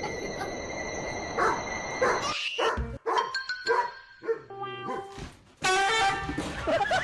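A dog barking and yipping over background music.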